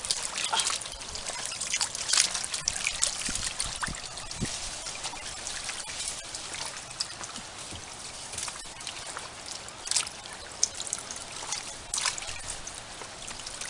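Shallow water trickling and splashing as hands work in it at the water's edge, with irregular small splashes.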